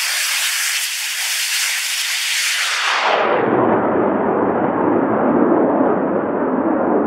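Jet aircraft passing close by. A loud, high rushing hiss changes at about three seconds into a lower, steady rumbling roar.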